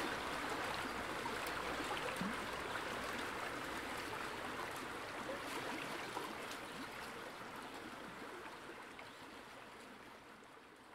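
Steady rushing of water, with scattered faint ticks, fading out gradually.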